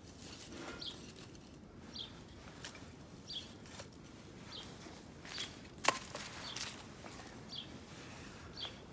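Thin split-wood kindling sticks being laid over a tinder bundle, with light wooden clicks and taps as they touch, the sharpest knock about six seconds in. A small bird chirps over and over in the background, roughly once a second.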